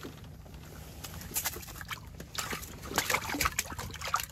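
A just-caught crappie being handled and unhooked over slushy ice: irregular wet slaps, flaps and rustles, busiest in the second half.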